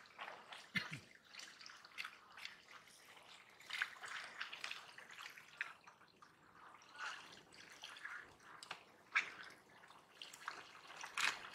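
Scattered soft, wet ticks and rustles of hands sorting a pile of small wet fish and shrimp on a plastic sheet.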